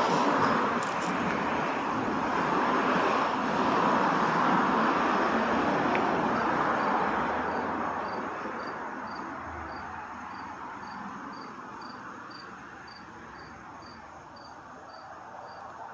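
Street traffic: the even rush of a passing vehicle, loudest at first and dying away over the second half. A faint high chirp repeats nearly twice a second through the later part.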